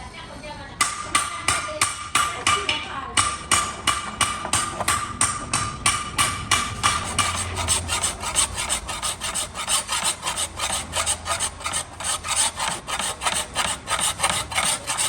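A steel hoe blade being filed by hand: quick, even back-and-forth file strokes, about three or four a second, with a metallic ring through them. There is a short break about three seconds in.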